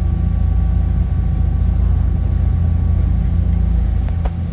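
Small enclosed passenger boat's engine running steadily, a loud low rumble with a faint steady whine above it, heard from inside the cabin. A couple of faint clicks near the end.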